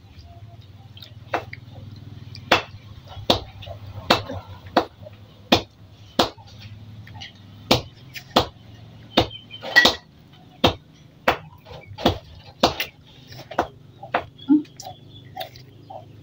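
Wet smacking and slurping mouth sounds of someone eating juicy ripe gincu mango, biting the flesh off the skin: short smacks coming about every half second to second.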